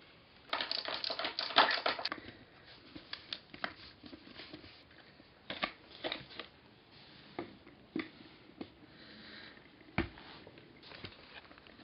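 Skateboard parts handled during assembly: a dense rattling clatter for about a second and a half near the start, then scattered clicks and knocks, with a heavier thump about ten seconds in.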